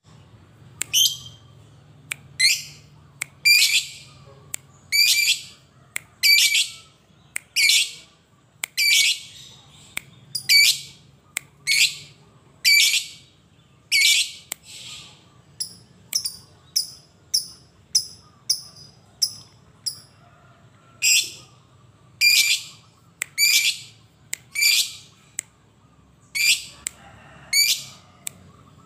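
Fischer's lovebird giving loud, shrill calls about once a second. Around the middle of the stretch it switches to a run of quicker, thinner chirps, then the loud calls return.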